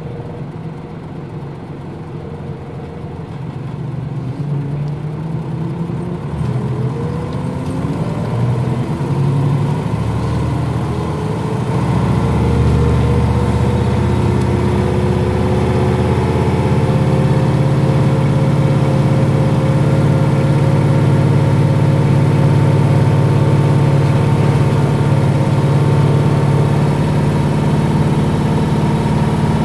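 Nissan Diesel KL-UA452MAN city bus diesel engine running. It is quieter at first, then pulls away about seven seconds in, its note climbing and growing louder, and settles into a steady drone that rises slowly in pitch as the bus gathers speed.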